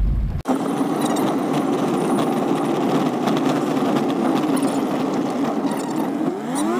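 Steady engine and road noise heard inside a car's cabin while driving on an unpaved dirt road, starting abruptly about half a second in. Near the end an engine note rises in pitch.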